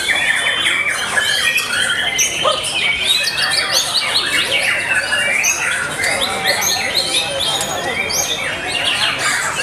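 White-rumped shama (murai batu) singing without pause: a dense, rapid run of varied whistles, trills and harsh chattering notes, with other birds singing over it at the same time.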